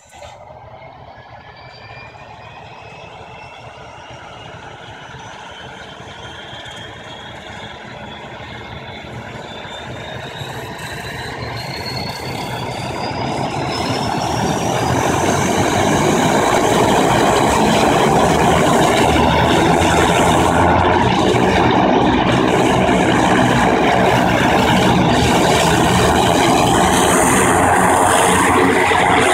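A turbine-converted Grumman Goose amphibian's turboprop engine starting up: a whine rises steadily in pitch and loudness over about fifteen seconds as the engine spools up, then settles into a steady, loud run with the propeller turning.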